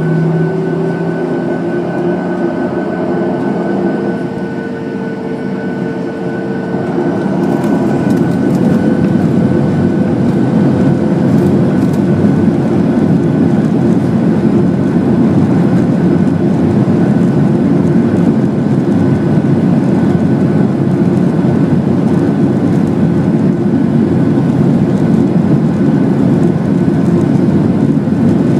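Boeing 737-600's CFM56 turbofan engines heard from inside the cabin, spooling up to takeoff thrust. Several steady engine tones come first, then about seven seconds in the sound grows louder and settles into a heavy, even rumble of the takeoff roll.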